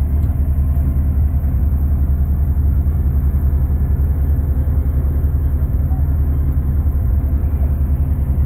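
New Holland 3630 tractor's three-cylinder diesel engine running steadily under load, driving a straw reaper that chops stubble and blows the straw into a trolley. The engine and the reaper's drum and blower run together as one even low rumble.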